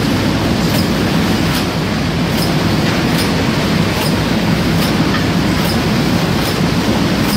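Broccoli and cauliflower floretting machine and its outfeed belt conveyor running: a steady mechanical rumble with a sharp click repeating a little faster than once a second.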